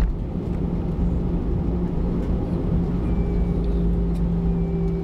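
Jet airliner cabin noise while the plane rolls on the ground: steady engine hum over a deep rumble from the airframe and wheels, with a faint tone that climbs slightly about three seconds in. A brief knock right at the start.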